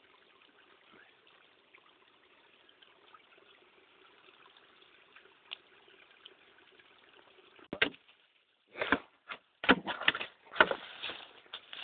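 A faint steady hiss, then from about eight seconds in a run of loud crackling rustles of dry leaves and brush being disturbed close by, several in quick succession.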